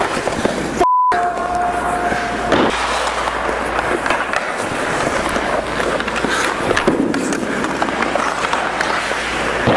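Ice hockey practice: skate blades scraping and carving the ice, with many sharp clacks of sticks and pucks against pads and boards. A brief dropout about a second in is followed by a short steady tone.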